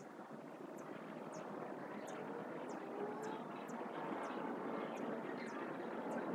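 Outdoor ambience: a steady distant engine rumble that slowly grows a little louder, with short high chirps about twice a second.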